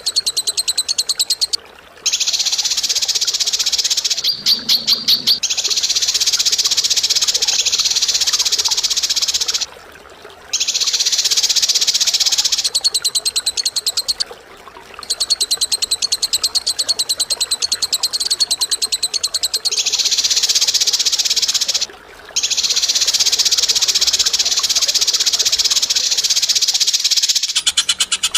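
A cage bird's long, very fast pulsing chatter, sung in unbroken phrases several seconds long with brief breaks between them.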